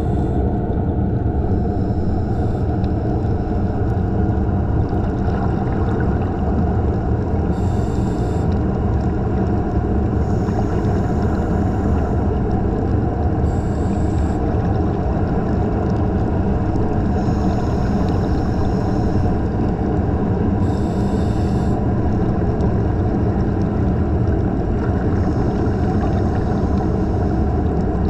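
Steady low underwater rumble picked up by a camera beneath the surface, with a faint hiss coming back every few seconds.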